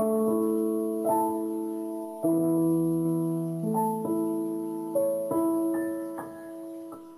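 Background music: a slow piano piece, chords struck about once a second and left to ring out and fade.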